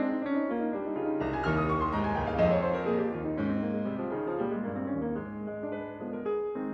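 Background piano music: gentle chords, with a falling run of notes about a second in.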